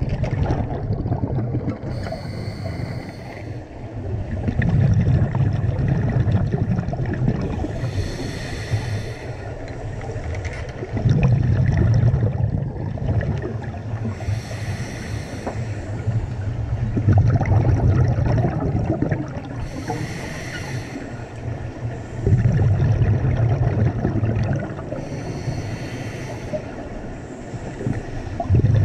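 A scuba diver breathing through a regulator underwater, heard on the diver's own camera: a short hissing inhale roughly every six seconds, each followed by a longer burst of rumbling, gurgling exhaled bubbles, about five breaths in all.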